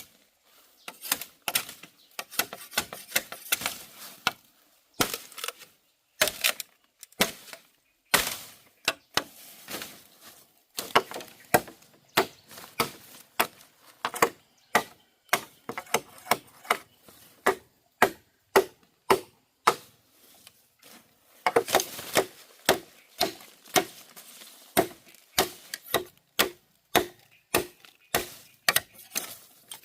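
Bamboo being chopped with repeated sharp strokes, about one and a half a second, with a couple of short pauses.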